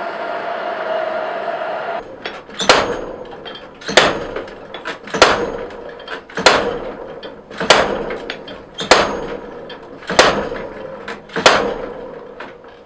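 Steady rushing noise with a hum that cuts off about two seconds in, then hammer blows on steel at a blacksmith's anvil: eight evenly paced strikes about one and a quarter seconds apart, each ringing briefly.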